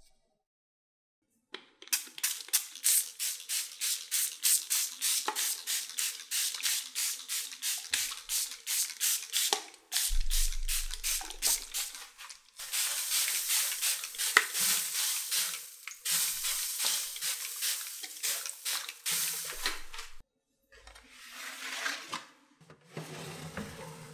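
Flour being sifted through a fine sieve: the sieve is tapped rapidly, about four times a second, with a dry shaking hiss. A denser, steadier stretch of sifting follows a low thump about ten seconds in.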